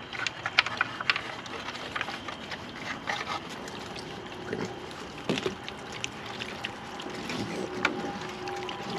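Water sloshing and splashing lightly as young raccoons wade and paddle about in a shallow plastic kiddie pool, with many small clicks and knocks scattered through it.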